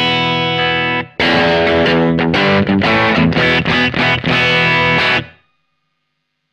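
Overdriven electric guitar in a Strat-style body with Häussel TE Broad pickups, strummed chords with a short break about a second in. The chords then cut off abruptly a little after five seconds.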